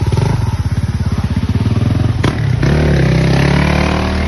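Single-cylinder four-stroke motorcycle engine idling with an even, lumpy pulse. A sharp knock comes about two seconds in, then the engine is revved and runs smoother, its pitch rising and falling.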